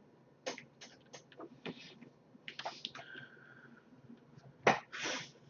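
Faint, scattered clicks and small taps, the loudest near the end, with a short faint steady tone about three seconds in.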